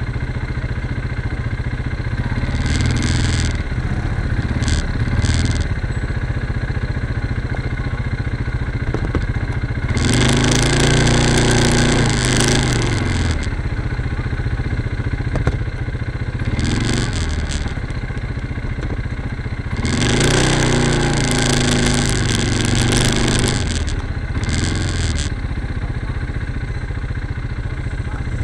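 Quad bike (ATV) engines: a steady low engine rumble, with a quad revving hard twice, about ten and twenty seconds in, each rev lasting around three seconds, and shorter blips of throttle in between.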